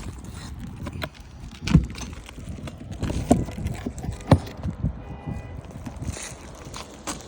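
Irregular knocks and clicks over a low rumble, the loudest knocks about two, three and four seconds in.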